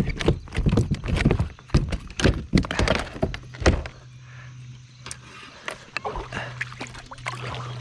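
Rapid knocks and thumps on a kayak, dense for the first few seconds, then a quieter stretch before a few more near the end, over a steady low hum.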